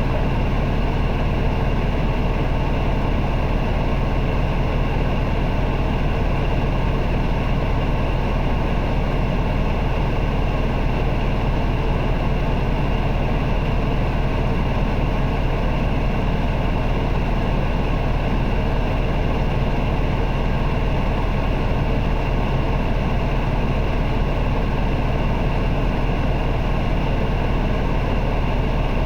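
Isuzu Erga city bus's four-cylinder diesel engine running at a steady, unchanging pitch, heard from inside the passenger cabin, with the heater's blower noise underneath.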